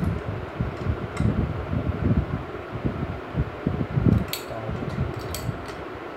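Spanner and bolts clinking on a motorcycle's aluminium wheel hub as the hub bolts are worked. There are a few light clicks early on, then a cluster of sharper metal clinks from about four seconds in, over a low, uneven rumble.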